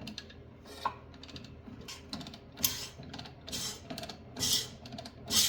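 Metallic clicking and rattling in short, irregular bursts, about six of them, as the seized Yard Machine snowblower engine is worked backwards with a tool. Something inside the engine is making an unexplained noise as it turns.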